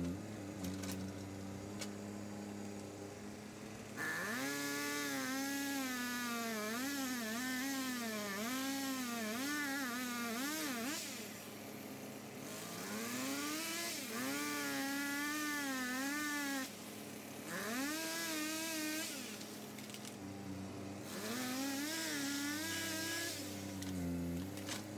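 Two-stroke chainsaw cutting wood at high revs, its pitch wavering rapidly up and down as the chain loads and frees in the cut, in several spells with short breaks, over the steady low hum of an idling machine.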